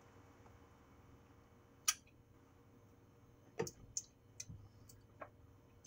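A few faint, scattered light clicks and taps of a utensil against the plastic food processor bowl: one about two seconds in, a quick cluster in the middle, and one more near the end.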